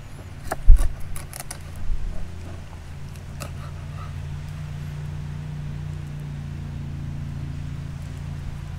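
A steady low engine hum, with several knocks and clicks in the first two seconds, the loudest a thump just under a second in.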